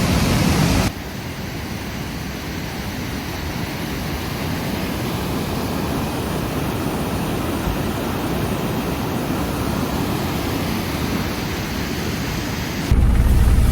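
Rushing water: a steady, even rush with no rhythm that cuts in about a second in. Near the end it cuts off abruptly to a vehicle's low engine and road rumble.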